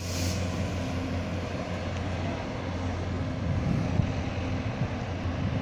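Diesel engines of a Taiwan Railways DR3100 diesel multiple unit running with a steady low drone.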